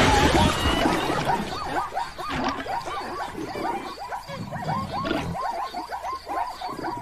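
Animated animal sound effects: a loud roar fades over the first second, then many short, rising squeaky calls follow, about three or four a second.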